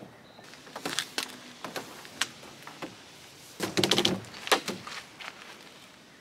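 Handling noise on a plastic canoe: scattered knocks, rattles and rustles as paracord is worked against the hull, with the loudest clatter about four seconds in.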